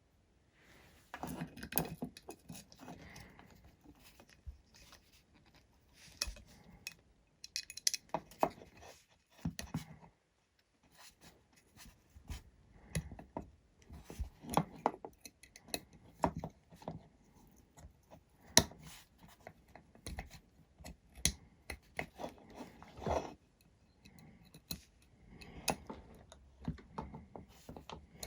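Small hardware and tools being handled during hands-on assembly: irregular light clicks, taps and scrapes of screws, a screwdriver and frame parts, with one sharper click about two-thirds of the way in.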